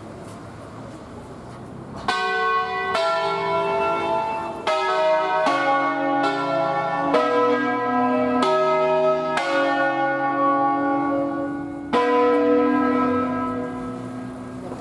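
Bronze church bells of a five-bell Barigozzi set in B, rung by rope in the Ambrosian full-circle system. About two seconds in they start striking in a quick sequence at different pitches, roughly one strike a second. A last strong strike comes about twelve seconds in, then the ringing dies away.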